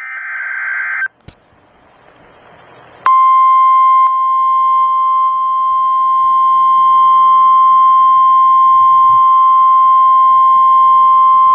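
A short burst of warbling digital data tones from an emergency alert header, then a moment of faint hiss. Then the 1050 Hz NOAA Weather Radio warning alarm tone sounds loud and steady for about nine seconds, signalling that a warning-level alert follows.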